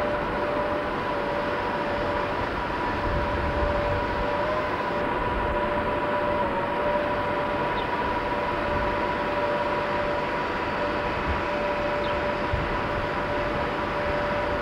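Electric locomotives at the platforms, a steady rushing hum with a constant two-note whine over it.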